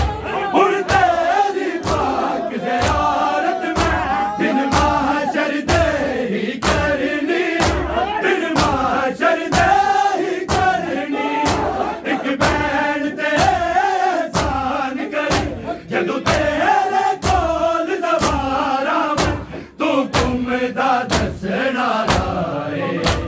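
Group of men chanting a Punjabi noha over steady, unison chest-beating (matam). The hand slaps on the chest keep an even beat of about three every two seconds under the singing.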